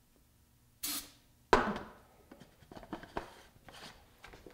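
Two short hissing squirts of starting fluid from an aerosol can into a potato cannon's clear combustion chamber, about a second in and half a second later. These are followed by faint knocks and rubbing as a tennis ball is pushed into the chamber's open end.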